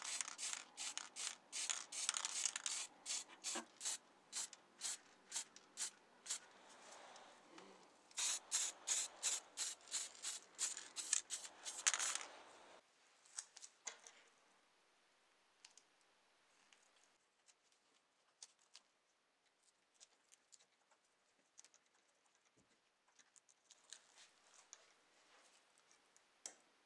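Rhythmic scraping or rubbing strokes, about two a second, in two runs with a short pause between them; they stop about halfway through. After that there are only sparse light ticks and clicks of small hand work.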